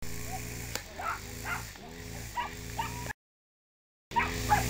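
Dogs yipping and barking in short, repeated calls during a scuffle with a duck, over a steady low hum. The sound cuts out completely for about a second near the end.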